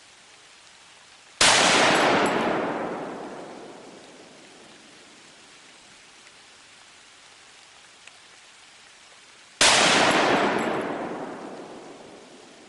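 Two shots from a scoped .308 rifle fired from a bench rest to sight it in, about eight seconds apart. Each crack dies away over two or three seconds.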